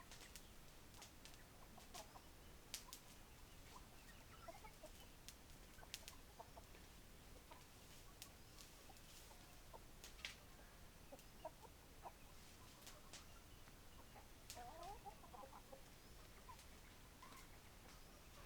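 Hens clucking quietly while feeding: short, soft clucks scattered throughout, a quick cluster of them about three-quarters of the way in, with sharp clicks now and then.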